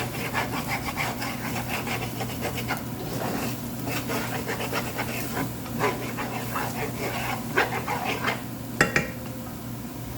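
A spatula scraping and stirring in a frying pan as eggs seasoned with light soy sauce cook, in a quick irregular run of short scrapes over a steady low hum. A sharper knock comes near the end.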